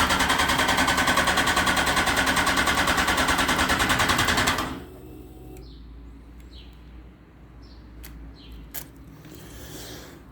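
Yamaha FZ1 motorcycle's electric starter pressed for about four and a half seconds: a loud, rapid, even pulsing at about eleven beats a second that stops suddenly, without the engine catching. This is the no-start that followed a valve clearance adjustment, on a brand-new battery.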